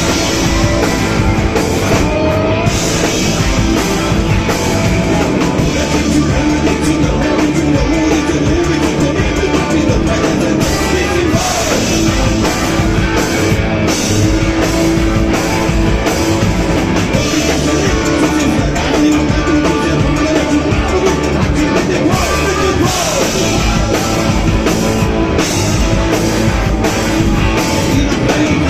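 Loud live rock music: a band with drum kit and guitar playing, with singing over it.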